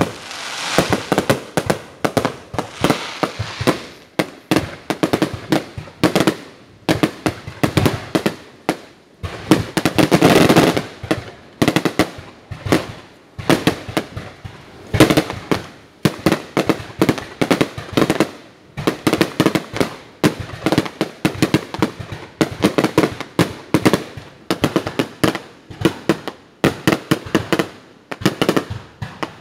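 Aerial fireworks display going off: a rapid, continuous string of sharp bangs and crackles, several a second, coming in waves with short lulls. There is a dense, loudest volley about a third of the way through.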